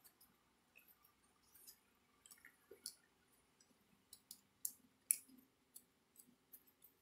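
Faint, scattered clicks and ticks of a screwdriver turning the terminal screws of a 240-volt plug, tightening the wires down, with a few sharper clicks about halfway through.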